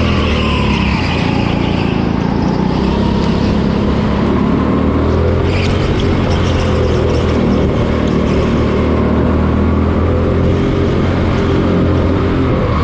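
Go-kart engine running steadily at speed, heard from the driver's seat, its pitch shifting only slightly through the corners.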